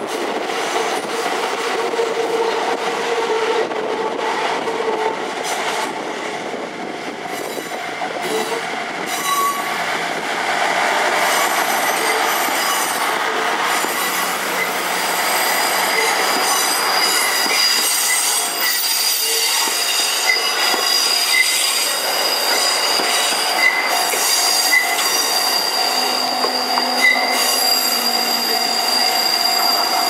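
JR Central KiHa 75 diesel railcar moving slowly through a shunting move, its engine and wheels running over the rails. A steady high wheel squeal sets in about halfway through, with a few short squeaks in the later part.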